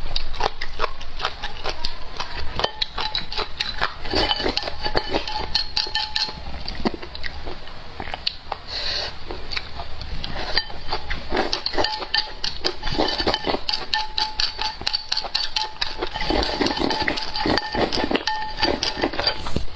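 Close-miked chewing of crunchy food: a dense, continuous run of crackling crunches, with occasional clinks of cutlery or dishes.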